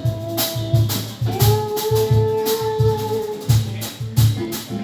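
Bossa nova band music between sung lines: a steady low bass-and-drum pulse, a shaker and long held melody notes, one shift up in pitch about a second in.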